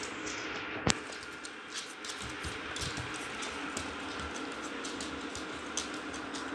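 Irregular small clicks and rubbing at the microphone from a Shetland sheepdog pressing its face against the phone, with one sharp, louder knock about a second in, over a low steady hum.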